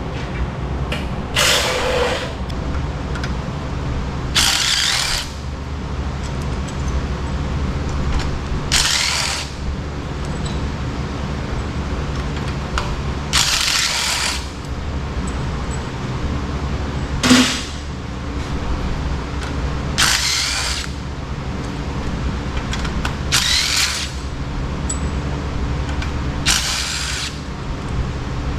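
Power drill driving a socket adapter on a stuck fastener of a generator engine in about seven short bursts a few seconds apart, over a steady low hum.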